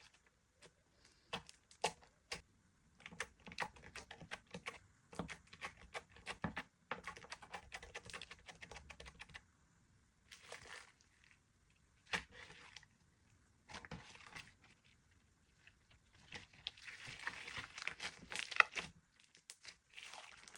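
Clear slime being squished and stretched by hand, giving irregular sticky clicks and pops, with a denser run of crackling near the end.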